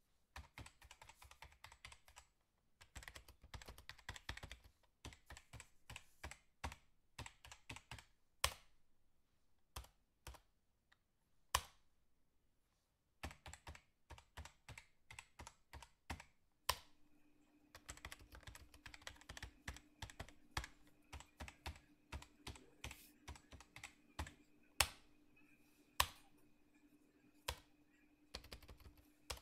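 Faint runs of quick, light clicks and taps in an irregular rhythm, with a few louder single taps among them. A low steady hum comes in about seventeen seconds in.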